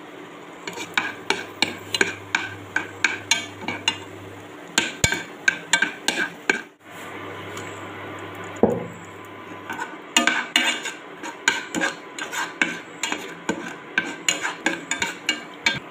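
Steel spoon stirring cashews and raisins frying in ghee in a pan, clinking and scraping against the pan about two or three times a second. The stirring pauses briefly near the middle, and a low steady hum runs under parts of it.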